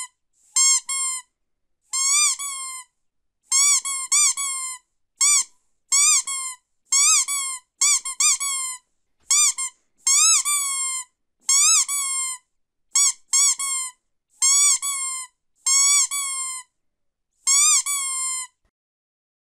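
Rubber squeaky dog toy squeezed again and again: a long series of high squeaks, some in quick pairs, each bending up and back down slightly in pitch.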